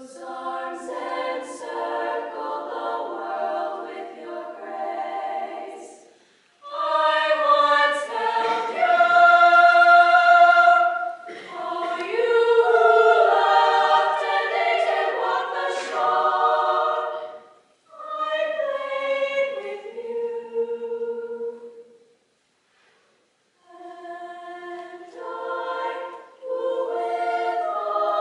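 Women's choir singing a cappella, in sung phrases separated by short pauses, with the fullest, loudest singing in the middle and a brief silence late on.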